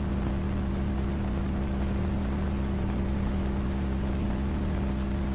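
Steady low droning hum with a few held low tones and a light hiss, even in level throughout, with no rise or fall.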